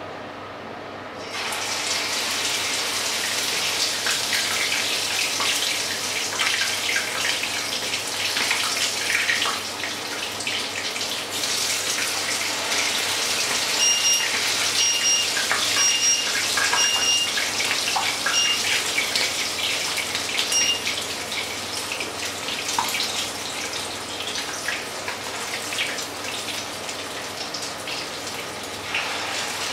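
Spoonfuls of batter frying in hot oil in a pan: a sizzle with crackling starts about a second in as the first dollop goes in and keeps on. Near the middle a high electronic beep sounds about six times.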